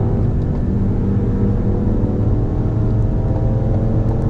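Turbocharged petrol car engine pulling hard under full acceleration at high speed, its note rising slowly and steadily with no gear change.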